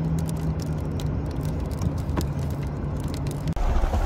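Car driving on the road, heard from inside the cabin: a steady engine and road hum with scattered light ticks of raindrops hitting the car. Near the end it cuts to a louder low rumble of wind on the microphone.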